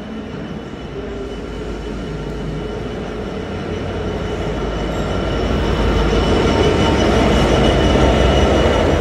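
Freightliner Class 66 diesel locomotive's two-stroke V12 engine running as it approaches and passes close by at the head of a container freight train, the rumble growing steadily louder and loudest as the locomotive goes past near the end.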